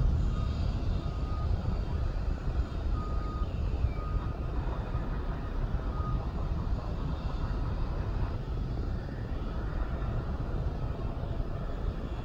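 Distant jet aircraft engines giving a steady low rumble across the airfield, with faint short high-pitched beeps repeating on and off in the background.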